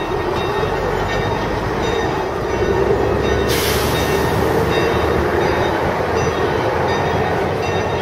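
Church bells ringing together in a continuous, dense clangour over steady street noise, with a short hiss about three and a half seconds in.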